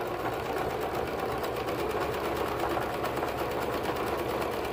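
Domestic electric sewing machine running steadily at speed, stitching a cuff onto a shorts leg opening, its needle going in a rapid, even rhythm.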